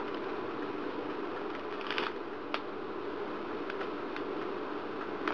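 Shredded cheddar cheese being sprinkled over a dish of baked macaroni: a few faint ticks and rustles from the handling, about two seconds in and again near the end, over a steady low hiss of room noise.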